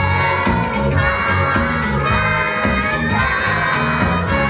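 Backing music playing, with a steady pulsing bass beat under held melody lines.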